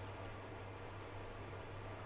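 Fingers squishing and mixing rice and dal on a plate, faint wet squishing with a few small clicks, over a steady low hum.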